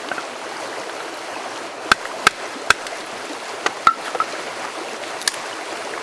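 Antler chisel struck against an incense cedar branch to chip off its edge: about six sharp knocks at irregular spacing, with steady rushing creek water underneath.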